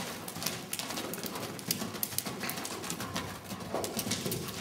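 A loose horse's hoofbeats on the arena footing as it moves fast around an indoor riding hall, a quick, irregular run of knocks.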